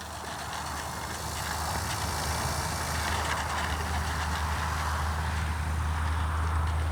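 Electric RC plane's brushless outrunner motor and 13x6.5 propeller under power for takeoff: a steady whirring prop noise that builds over the first two seconds or so and then holds, over a steady low rumble.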